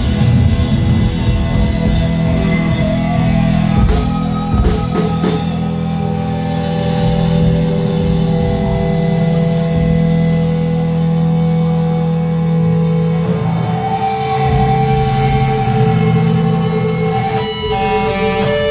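Rock band playing, electric guitar over bass and drums, loud and steady, with a few sharp hits about four to five seconds in.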